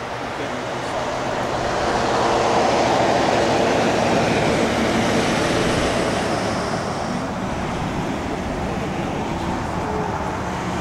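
Road traffic noise: a vehicle going by, its tyre and engine noise swelling to a peak a few seconds in and then slowly fading.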